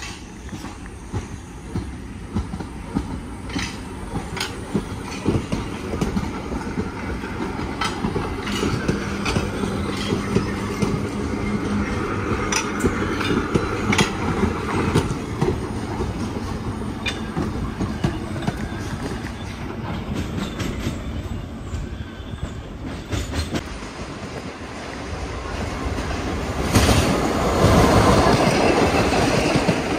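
Vintage subway cars rolling past on open track, wheels clacking over the rail joints in scattered clicks over a steady rumble. It grows loudest near the end as the next train closes in.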